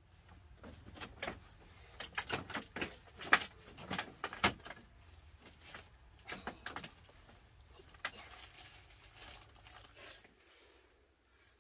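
Irregular knocks and clicks, several in quick succession at the busiest, thinning out near the end.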